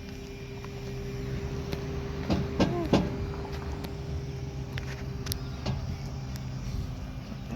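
Car engine idling steadily, with a few light clicks.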